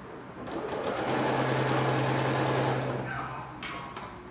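Electric sewing machine stitching through quilt layers in one run of about two and a half seconds: it starts up, runs at a steady speed with its motor hum, then stops. A few light clicks follow near the end.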